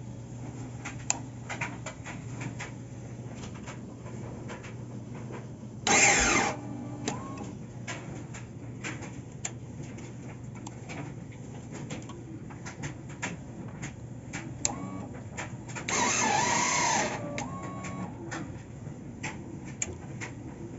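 2012 Yamaha V-Star 950 being tried on the starter: repeated clicks and two short bursts of cranking, one about half a second long and a longer one of about a second, over a steady hum; the engine does not fire.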